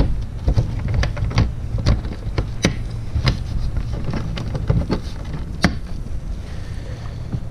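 Irregular clicks and knocks of a kayak's plastic front hatch lid and latch being handled and pressed shut, with one sharper click about five and a half seconds in, over a steady low rumble.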